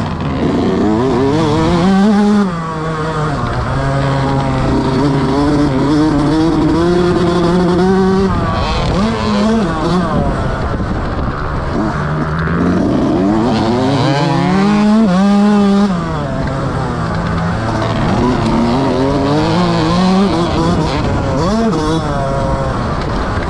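Motocross bike engine revving hard, its pitch climbing and falling again and again as the rider accelerates and backs off around the track, with marked drops about two and a half seconds in and again about two thirds of the way through.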